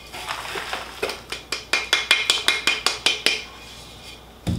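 Terracotta flower pot being knocked and handled: a quick run of sharp clinks, about four to five a second, then one dull thump near the end.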